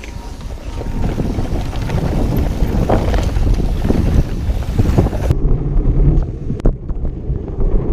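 Wind buffeting a GoPro microphone during a downhill mountain-bike run, over a steady rumble from the tyres on the trail, with a few sharp rattles and knocks from the bike over bumps in the second half.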